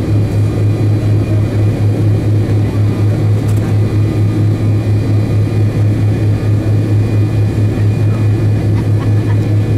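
Cabin drone of the MD-88's tail-mounted Pratt & Whitney JT8D engines at idle, heard from a seat near the tail: a steady low hum that throbs with a quick, regular beat.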